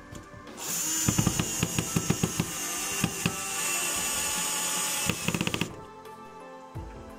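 Cordless drill-driver running, driving wood screws down through a small wooden block into a pine board, with runs of rapid sharp clicks, the last fast run just before it stops, about two seconds before the end.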